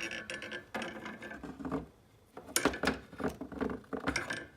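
Light metallic clinks and taps, about half a dozen, irregular with a short quiet gap in the middle, as a magnetic pickup tool probes among engine-bay parts to retrieve a dropped small bolt.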